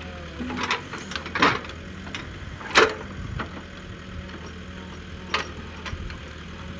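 Diesel engine of a JCB backhoe loader running steadily with a low hum, with three sharp knocks, the loudest about three seconds in.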